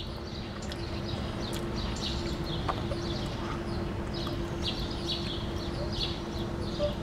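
Small birds chirping in quick repeated short calls, over a steady low hum and low outdoor background noise.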